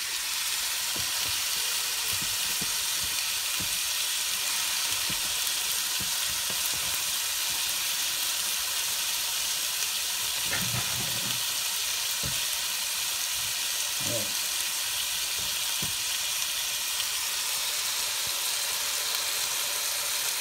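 Pork chops frying in oil on a hot griddle pan, a steady sizzle.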